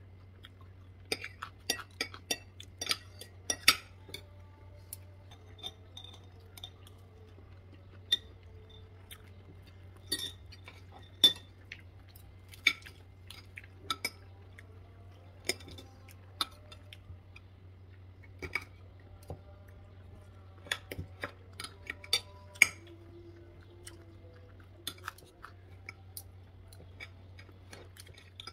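Metal spoon and fork clinking and scraping against a ceramic plate during eating, in irregular sharp clicks with a few louder clinks, over a faint steady low hum.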